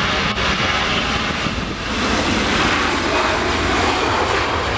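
Airbus A340-300's four CFM56 turbofan engines at takeoff thrust as the airliner rolls down the runway: a loud, steady jet engine noise with a hiss across the whole range.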